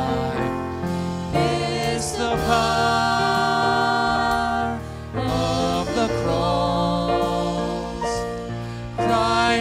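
A woman and a man singing a worship song together, with instrumental accompaniment holding sustained low notes beneath their voices.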